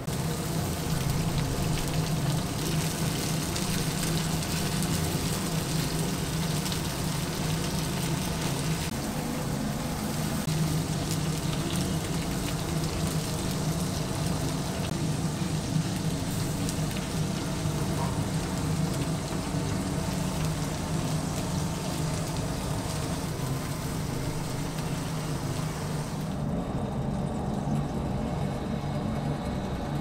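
Oak-firewood fire crackling and chicken fat sizzling in an open rotisserie roaster, over a steady low hum. The hiss thins out near the end.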